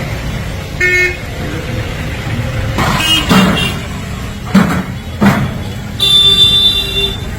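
Road traffic running, with a vehicle horn: a short toot about a second in and a longer honk near the end. A few sharp knocks come in between.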